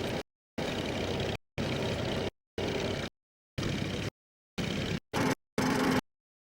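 Tractor engine running in the field, heard in short chunks of under a second that cut in and out abruptly, with dead silence between: dropouts in the old recording's soundtrack.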